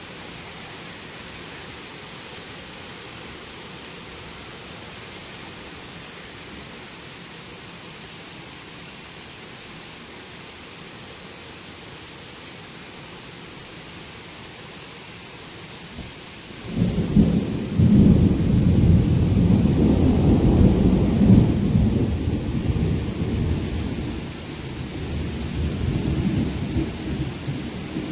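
Steady rain hissing, then about sixteen seconds in a sudden loud thunderclap that rolls on as a long, uneven rumble, swelling and ebbing for about ten seconds.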